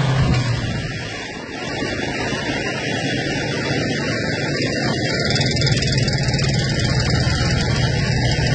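Semi truck travelling on the highway: a steady low engine drone under even road and wind noise.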